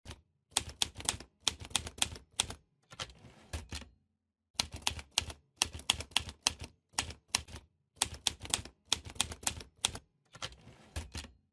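Typewriter sound effect: runs of quick, sharp key strikes with short pauses between the runs, as title text is typed out on screen.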